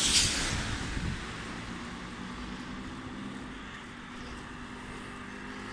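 A car passing close on a wet road, its tyres hissing on the wet asphalt and fading within about a second. After that comes a quieter steady low hum of street background.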